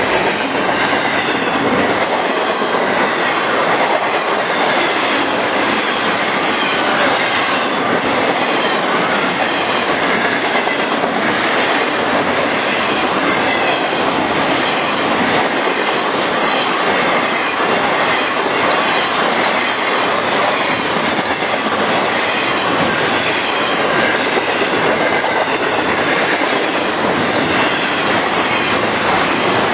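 Intermodal freight train of double-stacked containers and trailers passing close by: the loud, steady noise of steel wheels rolling on rail, with faint clicks here and there as wheels cross rail joints.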